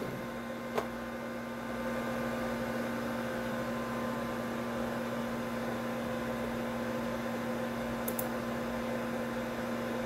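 Steady electrical hum with a faint whine from the computer setup. It grows slightly louder about two seconds in. A single sharp click comes about a second in, and faint clicks come near the end.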